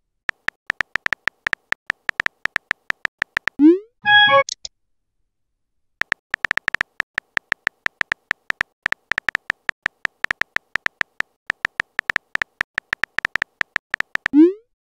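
Phone-keyboard typing sound effect: rapid tonal clicks, about seven or eight a second, in two runs with a pause between. Each run ends with a short rising swoop, a message-sent sound, and the first swoop is followed by a brief bubbly chime.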